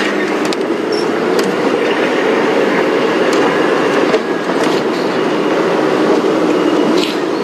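Open safari game-drive vehicle driving over a rough dirt bush track: a steady rumble of engine and tyres with scattered rattles and knocks from the body.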